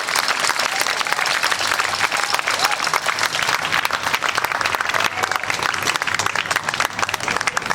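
Crowd applauding, with steady clapping from many hands.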